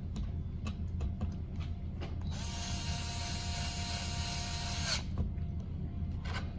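Small electric precision screwdriver whirring for about two and a half seconds, spinning up and winding down, as it drives a screw into the laptop's battery bracket. Light clicks of the bit against metal come before it.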